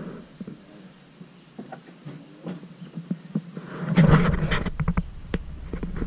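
Camera rustling and a few light clicks, then about four seconds in a louder spell of handling rumble and a quick run of sharp clicks and knocks, as a glass storm door is opened and shut.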